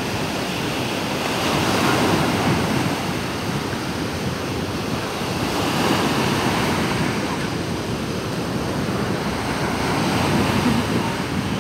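Ocean surf breaking and washing up the beach, a steady rush of water that swells and eases about every four seconds.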